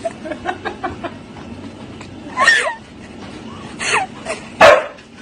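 A husky giving three short yips and barks in the second half, about a second apart, the last the loudest.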